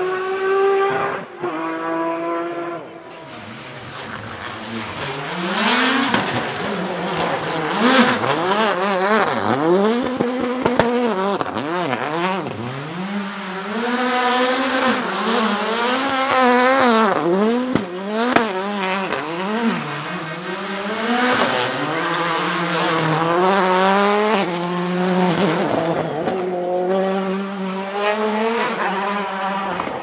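Rally car engines revving hard, the pitch swinging up and down quickly with throttle blips and gear changes, dipping briefly about three seconds in, with some tyre squeal as a car slides on tarmac.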